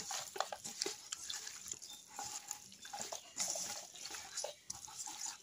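Hands squishing and kneading raw chicken pieces coated in mustard oil and turmeric in a steel bowl: irregular wet squelches and small slaps.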